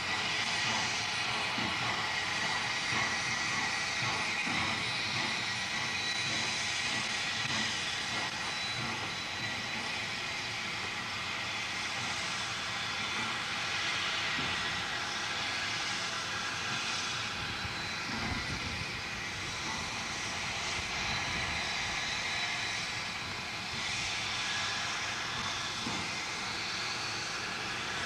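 Canadian Pacific 2816, a Class H-1b 4-6-4 Hudson steam locomotive, approaching with its train: a steady, even noise of the working engine and moving cars.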